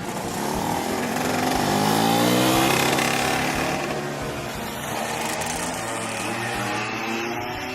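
A motor vehicle engine revving up: its pitch rises over the first couple of seconds, then it runs steadily at high revs.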